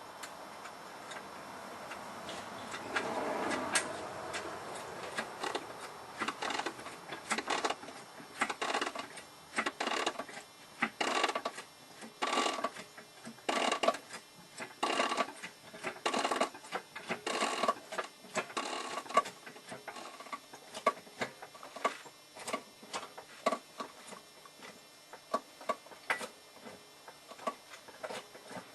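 A car jack being worked to lift the front of a Volvo S90, its strokes making repeated sharp clicks about one to two a second. A little squeaking from the suspension comes with the lift, which the owner thinks may come from the control arm mounts but is not sure.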